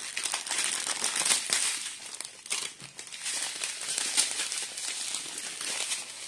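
Clear plastic bags and pouch strips of diamond painting drills crinkling irregularly as they are handled and unfolded, dipping briefly quieter about halfway through.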